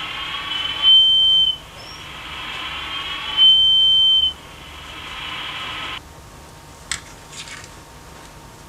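Small speaker of a homemade Arduino walkie-talkie giving a high steady beep twice, each about half a second long, with a tinny hiss carrying faint wavering tones between the beeps that cuts off about six seconds in. A sharp click follows about a second later.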